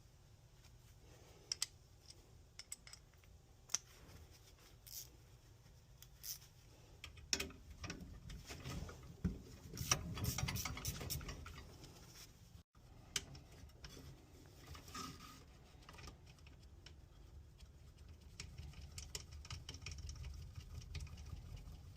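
Faint, scattered small clicks, taps and scrapes of hands and tools working on furnace gas-valve fittings, over a low steady rumble.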